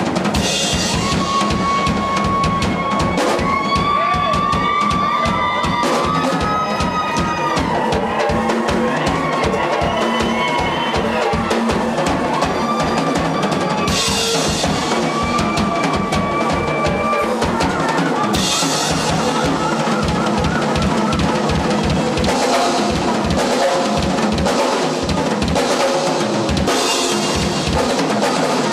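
Rock drum kit played solo: fast rolls across the toms and bass drum. Crash cymbals are struck about a second in, about halfway through, a few seconds later and again near the end. A high held tone rings over the drums at times in the first half.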